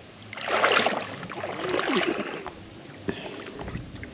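Water splashing and sloshing in a shallow stream, with a loud splash about half a second to a second in and more sloshing around two seconds in, settling to a lower steady wash of flowing water.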